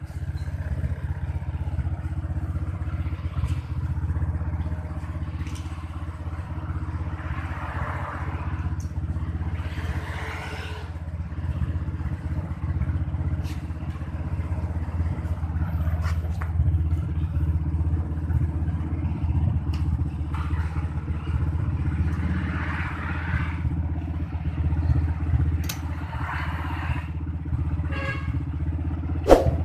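Honda Supra X 125D's single-cylinder four-stroke engine idling steadily, with a few light clinks and scrapes of metal near the exhaust.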